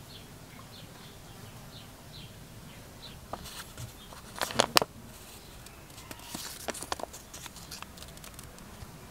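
A graph-paper sheet torn out of a spiral notebook with a short sharp rip about four and a half seconds in, then crinkling paper as the sheet is folded. Faint bird chirps in the first couple of seconds.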